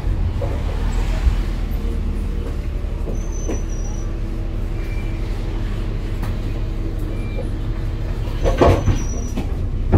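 Bus engine and road rumble heard from inside the moving bus, steady throughout, with a brief louder rattle or knock near the end.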